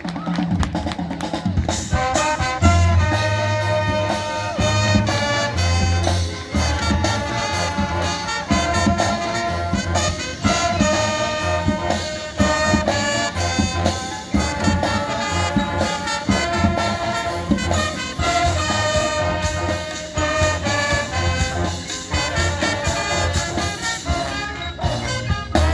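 Marching band playing a brass-heavy passage, with low brass and drums pounding out repeated bass notes under the horns.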